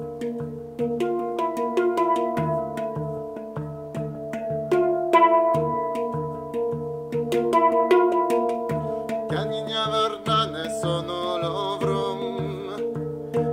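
Handpan (steel hang drum) played by hand: ringing, overlapping pitched notes over a regularly repeating low bass note. From about nine seconds in, a wordless wavering voice sings along over it.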